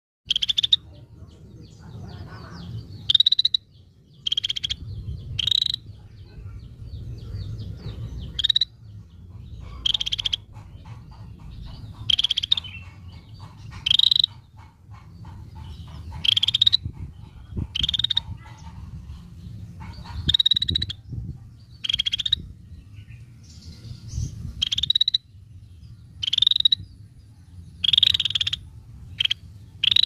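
Scaly-breasted bulbul calling: short, buzzy, high-pitched notes about half a second long, repeated every second or two, over a low background rumble.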